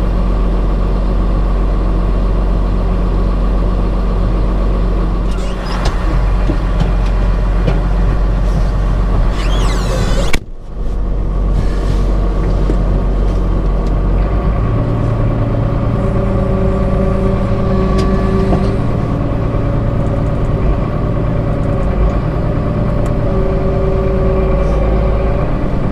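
Heavy diesel machinery of a tub grinder running steadily while grinding hay bales, a continuous loud drone. A little over ten seconds in, the sound cuts out for a moment and comes back with a different mix of tones.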